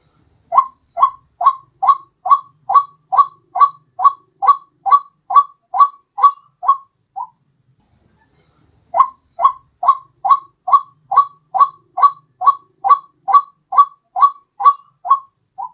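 White-breasted waterhen (ruak-ruak) calling: a steady run of short, upward-sliding notes, about two a second, breaking off for a moment about seven seconds in and then starting again.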